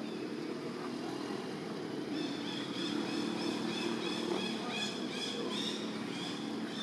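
Outdoor ambience: a steady low motor hum, with a run of short, high chirps repeating several times a second from about two seconds in.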